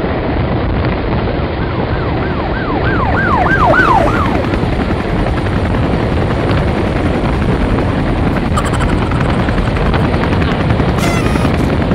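Heavy wind rush and buffeting on the microphone together with the running noise of a moving train, heard from a head stuck out of the carriage window. About two seconds in, a quick run of wavering high tones sounds over it for a couple of seconds.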